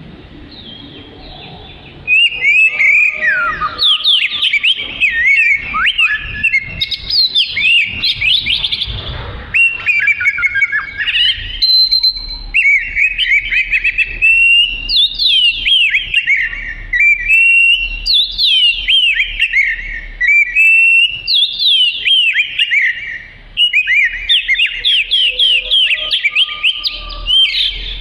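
Oriental magpie-robin (kacer) in full song: loud, rapid phrases of quick sliding notes, one after another, starting about two seconds in, with a brief break about three quarters of the way through.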